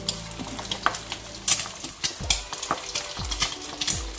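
An egg deep-frying in hot oil, sizzling with dense, irregular sharp crackles and pops as its edges crisp. A few low thumps come in the second half.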